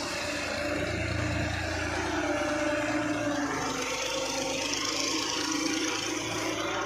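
Diesel engine of a 1994 Fiat 480 tractor running steadily, its pitch wavering slightly as the engine speed changes.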